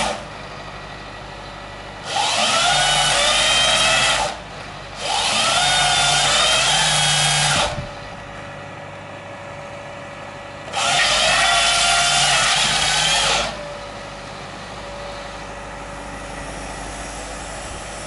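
Hydraulic chain saw of an excavator-mounted felling head running in three loud bursts of a few seconds each, its whine rising in pitch as it spins up, while cutting through a tree trunk. A quieter steady machine hum continues between the bursts.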